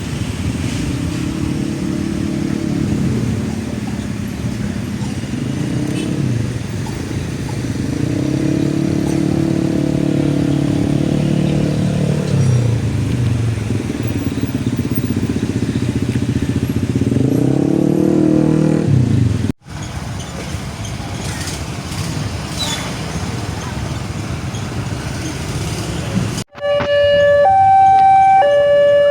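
Motorcycle and car engines revving and passing, their pitch rising and falling as they go by. After two abrupt cuts, a railway level crossing's electronic alarm starts near the end, alternating between two tones about once a second.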